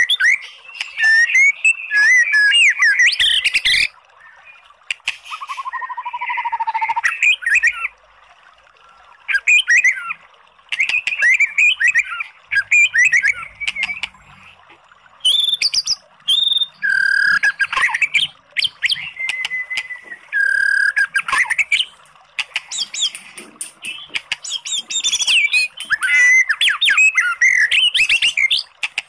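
White-rumped shama (murai batu) singing in quick, varied phrases of whistles, trills and harsh chattering notes, with short pauses between phrases.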